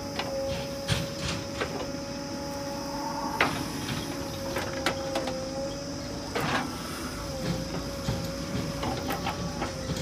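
JCB 3DX backhoe loader at work, its engine and hydraulics giving a steady whine, with scattered knocks and clanks as the bucket digs and dumps soil into a tractor trolley.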